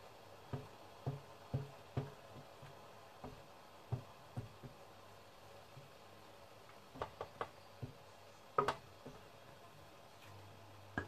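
Soft knocks of a metal ladle against a stainless steel steamer tray as rice-flour batter is spread over the wet cloth, about two a second. Later come a few sharper metal clicks and one louder click.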